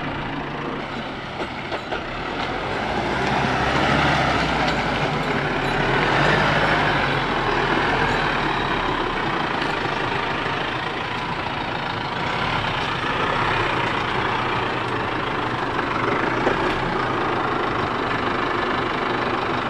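Four-wheel-drive vehicle's engine running under load as it drives out of a bog, with a broad rushing noise that swells a few seconds in.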